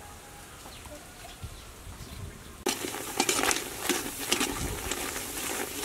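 Faint small ticks as lumps of palm sugar are crumbled into a pot. About three seconds in, an abrupt switch to the sugar bubbling and sizzling as it melts into caramel in the hot pot, with a spoon scraping and clinking against the pot as it is stirred.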